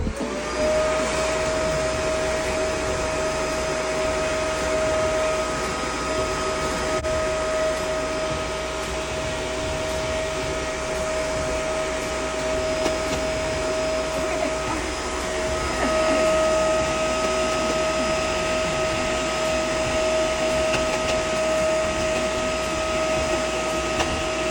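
Electric blower motor running steadily: a constant high whine over a rush of air.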